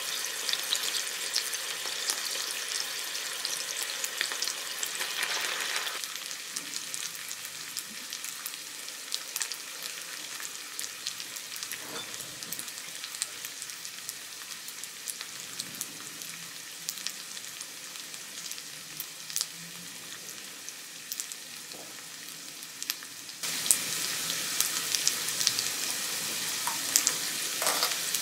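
Beef steak pieces sizzling on an electric hot plate: a steady frying hiss with scattered small pops and clicks. The sizzle drops quieter about six seconds in and jumps back up suddenly near the end.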